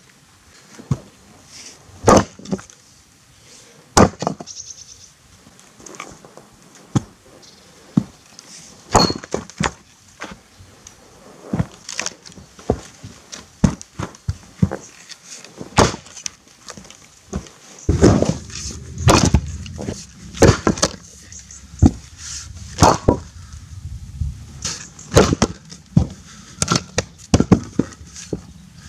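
Sharp knocks and cracks of firewood rounds being struck and split with an axe, irregular and spaced out, the loudest about two and four seconds in. A low rumble sets in about two-thirds of the way through.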